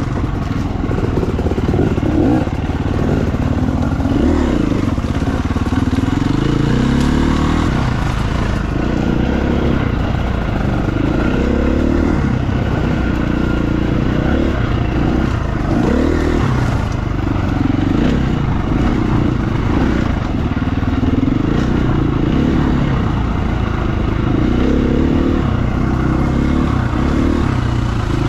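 Husqvarna FE350 dirt bike's single-cylinder four-stroke engine running as the bike is ridden, its revs rising and falling continually with the throttle.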